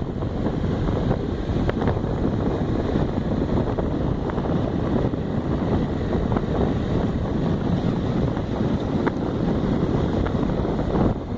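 Steady wind rush over the microphone of a moving Honda XRE trail motorcycle, with the bike's running engine mixed into the noise.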